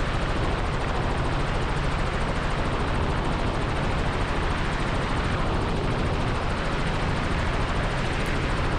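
Robinson R44 helicopter in flight: a steady, unchanging noise of the main rotor and piston engine, with a low rumble under an even hiss.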